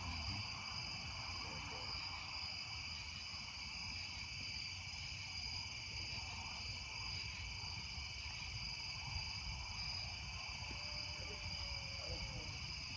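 Steady chorus of crickets and other night insects: a continuous high-pitched drone of several layered tones, with a low rumble underneath.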